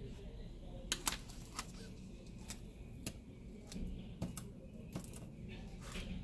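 Scattered light clicks and ticks of a precision screwdriver and tiny screws being worked on the iPad Air's LCD screws, the sharpest pair of clicks about a second in.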